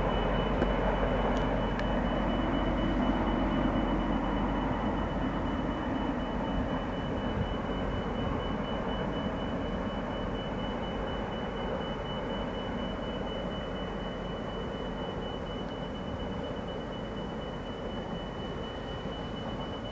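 Loaded coal train rolling away, a steady rumble of the freight cars that fades slowly as the end of the train recedes. A thin, steady high-pitched tone sounds over it.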